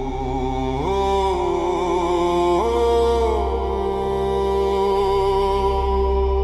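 Wordless chant-like voices hold long notes over a steady low drone, gliding up to a higher note about a second in and again near three seconds, then settling back down.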